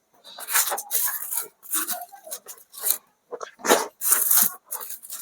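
A person eating close to the microphone: chewing and mouth-smacking in irregular bursts.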